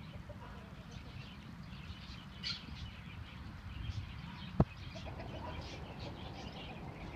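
Birds chirping, many short high calls throughout, with a single sharp knock a little past halfway.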